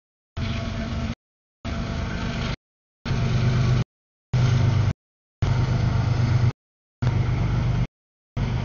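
Passing CSX mixed freight train, heard as a run of short edited clips under about a second each, broken apart by half-second gaps of dead silence; each clip holds a steady low rumble with a few low tones.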